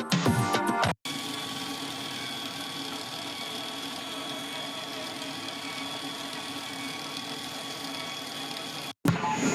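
A steady droning noise with a faint high whine, cut in abruptly about a second in after a moment of music and cut off just as abruptly near the end.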